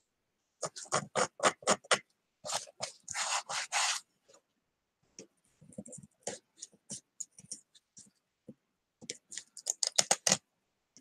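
A pointed metal pick scraping leftover pattern paper off a wood-burned wood round. It goes in quick, short scratching strokes, with a longer scrape about three seconds in and a dense flurry of strokes near the end.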